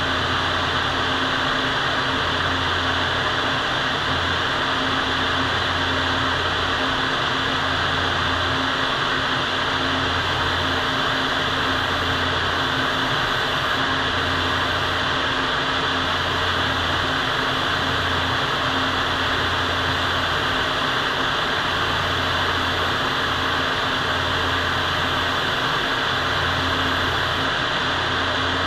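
Paint spray booth's ventilation running: a steady, loud rush of moving air with a low hum that fades in and out.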